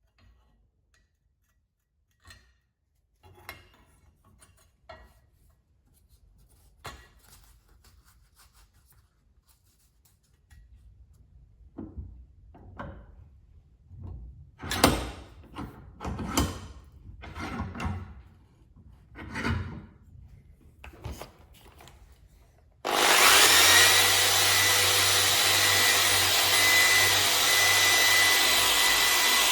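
A series of knocks, taps and scrapes from handling, then about 23 s in an electric drill fitted with a wire-brush wheel starts abruptly and runs steadily, brushing rust off a metal light holder clamped in a vise.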